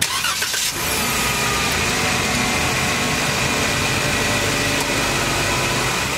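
A motor vehicle's engine running steadily, with a low rumble under a dense hiss.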